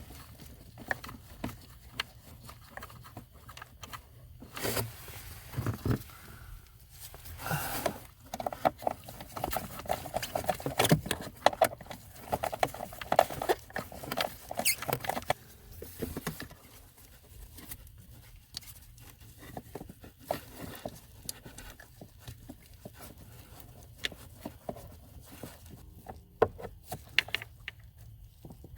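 Irregular small clicks, taps and plastic rubbing from hands and tools working a blend door actuator into place under the dashboard, busiest in the middle.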